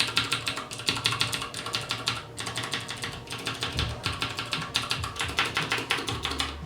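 Cherry MX White clicky switches on a Ducky Shine 3 mechanical keyboard, keys pressed rapidly and bottomed out, giving a fast stream of clicks and clacks in several bursts with short pauses between.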